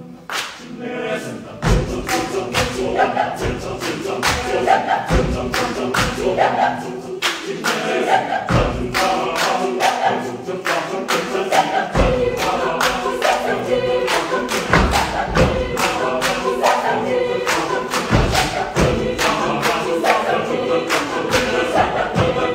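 A large mixed choir singing a driving, rhythmic a cappella piece in a reverberant theatre. Singing carries throughout, with heavy stamps every few seconds and many sharper percussive hits marking the beat.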